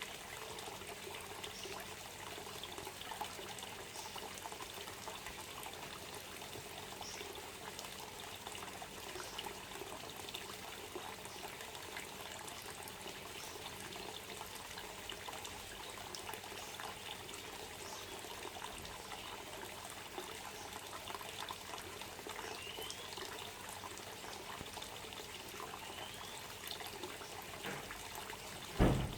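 Water trickling and pouring steadily, with a few faint short rising chirps in the second half and one thump just before the end.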